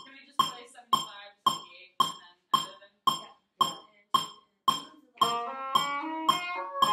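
A metronome ticking steadily, a little under two clicks a second. About five seconds in, oboes come in with a phrase of held notes in time with the clicks.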